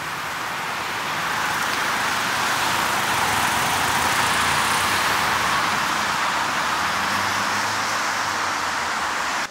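Road traffic passing: a steady rush of tyres and engines that builds over the first couple of seconds, with police motorcycles riding past.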